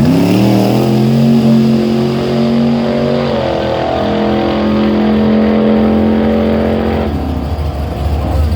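Freshly rebuilt car engine on its first run, revving up and running hard at a steady pitch. It steps up in pitch about three seconds in and drops off near the end.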